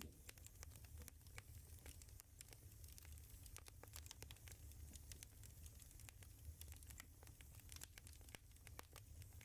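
Near silence: a faint low hum with scattered soft crackling clicks. No clear snore is heard.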